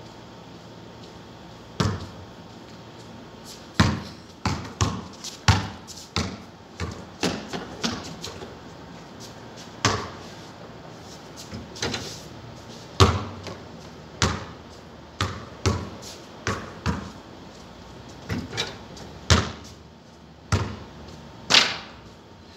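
Basketball bouncing on a concrete court as it is dribbled and shot at a hoop: a string of sharp, irregular thuds, about one or two a second, starting about two seconds in. A few hits are louder, the loudest about thirteen seconds in, around when a shot reaches the hoop.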